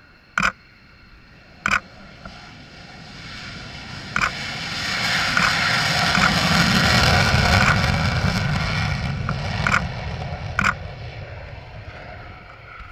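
A McDonnell Douglas F-15 Eagle's twin jet engines on the takeoff roll: a broad rushing rumble that builds over a few seconds, peaks in the middle and fades as the jet moves off. A few sharp single clicks stand out over it, twice near the start and twice near the end.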